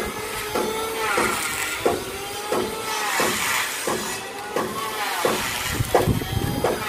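Hand saw cutting through timber in steady back-and-forth strokes, about three strokes every two seconds, each stroke with a rising-and-falling ring from the blade.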